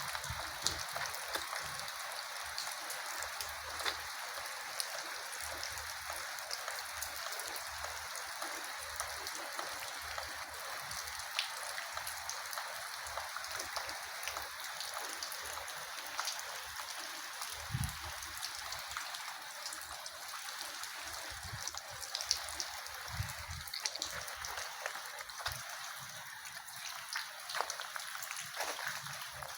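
Steady rain with scattered drips and light taps, and an occasional soft thump.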